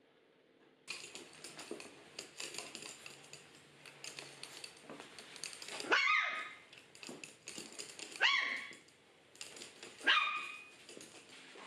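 A toy poodle barking three times, about two seconds apart, each a short, sharp bark. Before the barks there are several seconds of small clicks and rustling.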